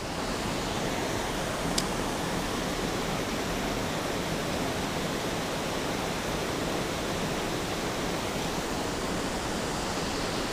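Steady rushing of water pouring over a low weir. There is a single brief click about two seconds in.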